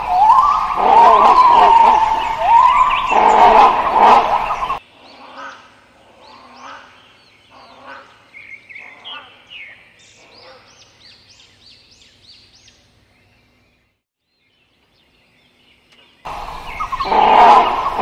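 Great hornbills calling: a run of loud, harsh calls, several rising in pitch, that stops abruptly about five seconds in. Faint higher chirping and then a few seconds of near silence follow, before the loud calls start again near the end.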